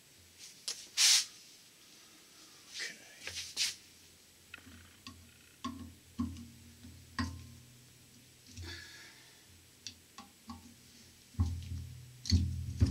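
Scattered clicks and scrapes of a screwdriver and metal starter parts being handled as screws on a Delco-Remy starter's end plate are snugged down, with a brief hissing scrape about a second in.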